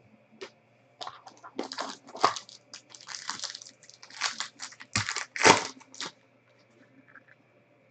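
Plastic wrapper of a trading-card pack torn open and crinkled by hand: a run of crackling tears from about a second in, loudest near five and a half seconds, stopping about six seconds in.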